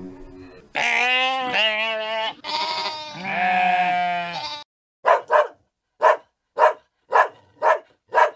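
Two long, wavering bleating animal calls, then a border collie barking, about seven short sharp barks with gaps between them.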